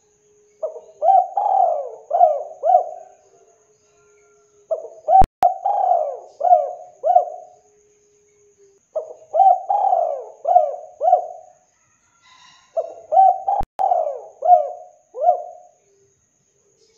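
Spotted dove cooing: four phrases of about five quick, rising-and-falling coos each, a couple of seconds apart.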